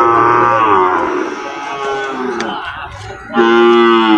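Peranakan Ongole (PO) cattle mooing. A long moo at the start sags slightly in pitch, fainter calls follow in the middle, and a second loud, steady moo comes near the end.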